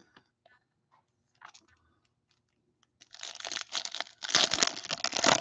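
A 2021 Bowman Chrome baseball card pack's wrapper being torn open and crinkled in the hands. It starts about three seconds in, after a few faint clicks.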